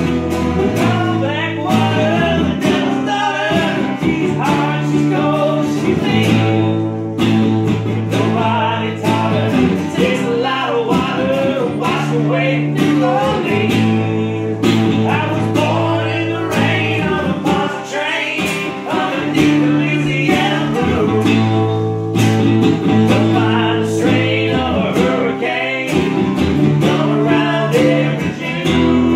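Two acoustic guitars strummed together in a country-rock song, with a man's voice singing along.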